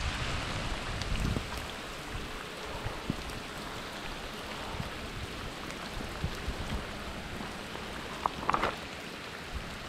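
Heavy rain pouring onto a pond's surface: a steady hiss with a scattered patter of drops. A brief squeak comes about eight and a half seconds in.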